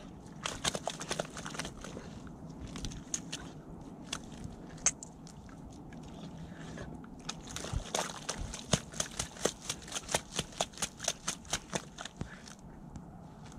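Husky puppy biting and chewing at the mud and grass, with crisp crunches: a few scattered bites at first, then a steady run of about four crunches a second in the second half.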